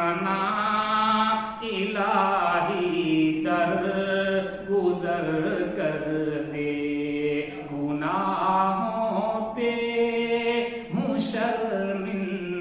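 A man's voice chanting an Urdu devotional nazm without accompaniment. The long, drawn-out sung phrases are about three seconds each, with brief breaths between them.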